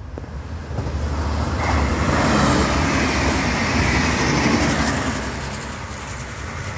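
V/Line VLocity diesel multiple unit passing at speed: a rushing roar of wheels on rail and engine rumble builds about a second in, is loudest in the middle, and fades as the train moves away.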